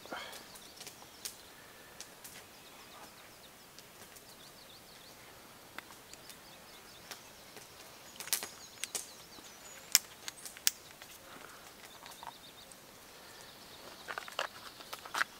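Quiet outdoor ambience with scattered sharp clicks and knocks, bunched in the second half, and faint high bird chirps in the background.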